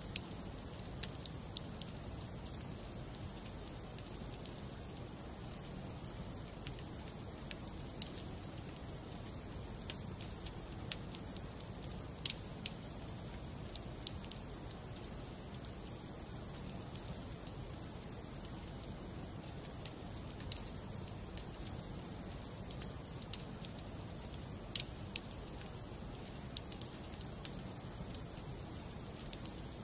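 Wood fire burning in a fireplace, with irregular sharp crackles and pops over a steady low rumble of the flames.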